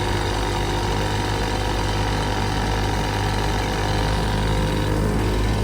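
Small street go-kart engine running steadily with an even hum.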